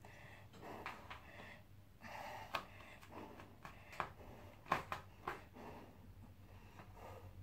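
A person breathing audibly in and out in soft, noisy puffs while holding and moving through yoga poses. Several sharp clicks come in the middle, over a low steady hum.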